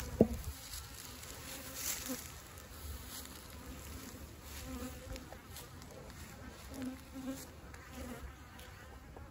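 Honeybees flying around mating nuc boxes, a low buzz with several short, louder buzzes as single bees pass close. A sharp click comes just after the start.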